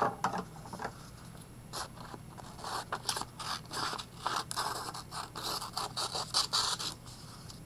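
Scissors cutting through folded paper: a run of short snips with the paper scraping and rustling.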